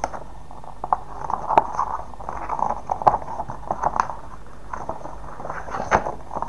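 A folded paper poster being unfolded and turned over by hand: paper rustling and crinkling, with a few sharp crackles along the way.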